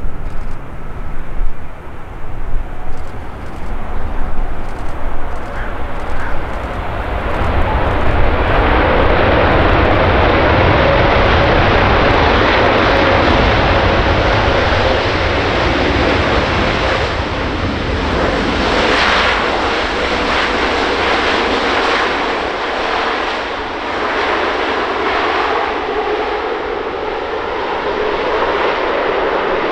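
Airbus A380-800 airliner's four jet engines on the landing rollout just after touchdown. The roar swells about eight seconds in and stays loud and steady, with a faint steady whine under it.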